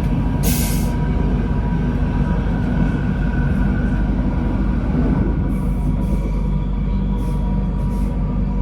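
Moving passenger train heard from inside the carriage: a steady rumble of wheels on the rails with a faint constant whine. A short hiss comes about half a second in, and a few fainter ones come later.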